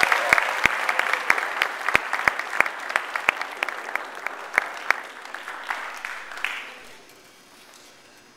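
An audience applauding, with loud, sharp claps from someone close by at about three a second over the general clapping. The applause dies away about seven seconds in.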